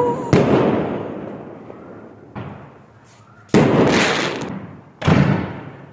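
Fireworks going off: four sharp bangs, each trailing off in an echoing rumble that fades over about a second, the second bang fainter than the others.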